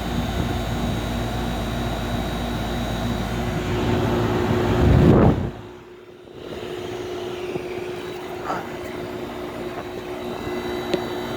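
A Carrier 2-ton heat pump outdoor unit running steadily in cooling mode, its compressor hum and condenser fan noise carrying a few steady tones. About five seconds in there is a brief loud rush of low noise. The sound then drops away for about a second and returns a little quieter.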